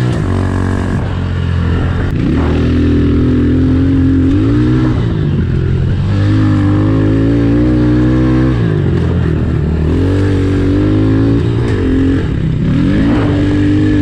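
Honda CRF110F pit bike's single-cylinder four-stroke engine being ridden hard, revving up, holding high revs for a couple of seconds, then dropping off, over and over as the throttle is opened and closed.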